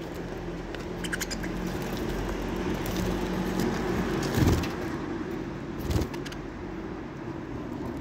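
Aviary budgerigars: a few faint high chirps and clicks, and two dull thumps about four and a half and six seconds in, over a steady low background rumble.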